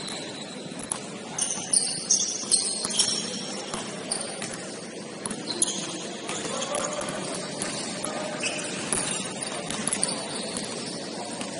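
Basketball shoes squeaking on a hardwood court in short, high-pitched chirps, with a few sharp knocks of the ball or players, over the steady background noise of a gym.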